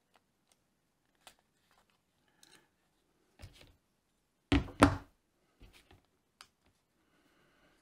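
Hand-held snap-setting pliers squeezing a metal press stud onto a leather strap, giving two loud sharp clicks in quick succession a little past halfway. Lighter clicks and taps of the small metal parts and the tool come before and after.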